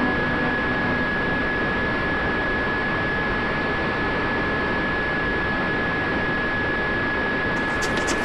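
Onboard sound of a Ritewing Mini Drak electric FPV flying wing in steady cruise: a continuous rush of wind and propeller with a constant high motor whine. Near the end, music with a ticking beat comes in.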